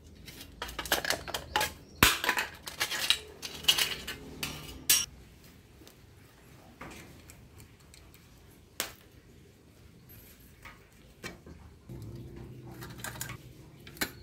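Old, rusty bicycle cantilever brake arm and pad being pulled off the frame and handled: a run of metallic clinks, rattles and scrapes over the first five seconds, the sharpest about two seconds in, then scattered single clicks and a few more near the end.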